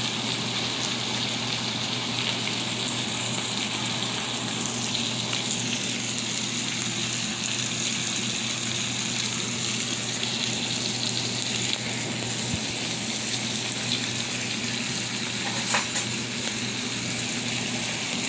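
Sliced steak and vegetables sizzling in a cast-iron skillet, a steady frying hiss over a low steady hum. One short click late on.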